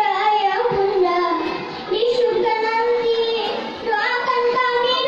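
A girl singing into a microphone, amplified through a loudspeaker, in a melody of long held notes that glide from pitch to pitch, with two short pauses for breath.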